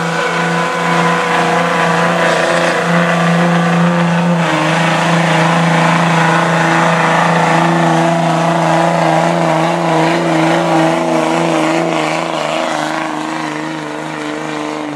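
Diesel pickup truck engine held at high revs under heavy load as it drags a weight-transfer pulling sled down the track, a loud steady drone with only slight wavers in pitch.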